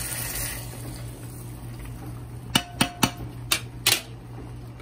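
A long metal spoon knocking against a large aluminium cooking pot while stirring: about five sharp clangs with a short ring, in a quick run past the middle. A soft hiss fades out in the first half second.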